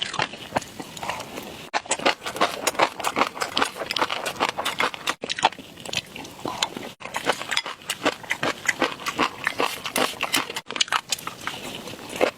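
Close-miked eating sounds: rapid, dense wet clicks and crunches of food being chewed in the mouth. The sound drops out abruptly for an instant several times, at edit cuts.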